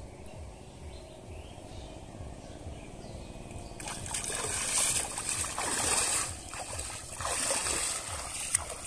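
Pond water splashing and sloshing as a man slaps and churns the surface with his hands. It comes in three or four loud surges starting about four seconds in, after a quieter start.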